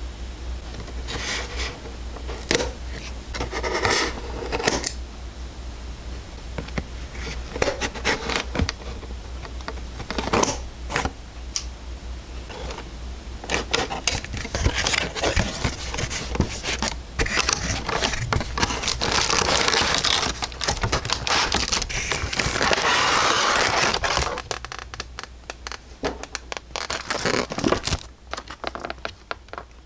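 Hands handling and opening a cardboard figure box: scratches, scrapes and sharp clicks of the cardboard and its end flap. Then, from about fifteen seconds in, a denser run of rustling and crinkling as the clear-plastic-bagged figure is slid out, which eases off after about twenty-four seconds.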